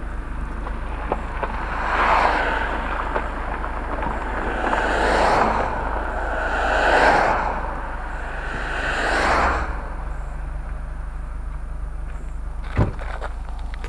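Renault Mégane RS 225's turbocharged four-cylinder engine at the factory exhaust tip, blipped four times in quick swells, then idling steadily. A single sharp click near the end.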